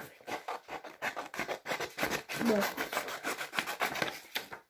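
Scissors snipping through a printed paper sheet in a rapid run of short, crisp cuts, with the paper rustling.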